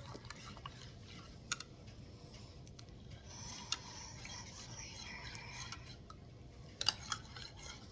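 A spoon stirring coffee in a mug, giving faint scattered clinks against the side, a few at a time, with a small cluster near the end.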